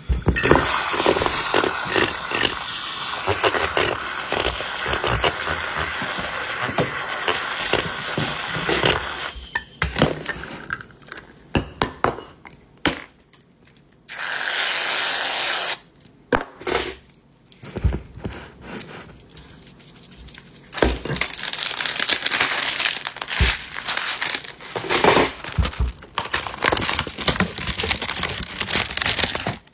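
Kitchen handling sounds as an iced coffee is put together in a glass mason jar: a long run of rustling and crinkling, scattered knocks and clinks, and a steady stretch of about two seconds as creamer is squeezed out of a bottle over the jar, followed by more crackly rustling as toppings go on.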